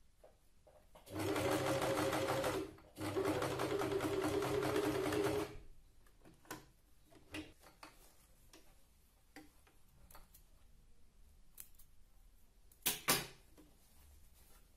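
Electric household sewing machine stitching in two runs of a couple of seconds each, with a brief stop between them. Afterwards come small clicks and rustles of fabric handling, and two sharp snaps about two seconds before the end.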